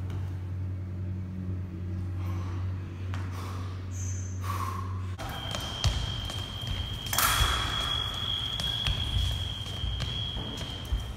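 A steady low hum, then an electric fencing scoring machine's single high-pitched tone that holds for about six seconds. Thuds and knocks sound under it, with a louder burst of noise in the middle.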